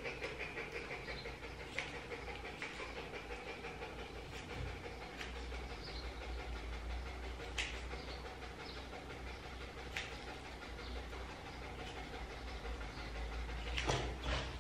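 Grooming scissors snipping fur at a dog's paw: a few sharp, separate clicks a couple of seconds apart, over a steady low hum and faint hiss.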